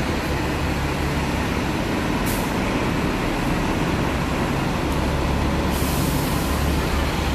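Double-decker buses' diesel engines idling with a steady low hum beside the kerb, with a short hiss of air about two seconds in and a longer one from about six seconds on, typical of bus air brakes releasing.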